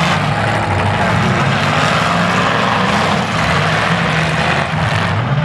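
Several demolition derby cars' engines running hard together in a loud, steady drone.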